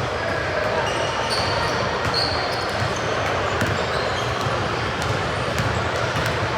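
Basketball game sounds in a gym: a ball bouncing on the hardwood, sneakers squeaking in short high chirps, and a steady background of crowd noise echoing in the hall.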